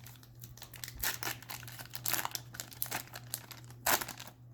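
Plastic or foil packaging crinkling as trading card packs and cards are handled, in irregular crackles with a louder rustle about a second in and another near the end.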